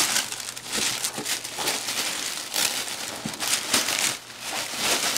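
Gift wrapping paper being torn and crumpled off a box by hand, in a run of irregular rustles and rips.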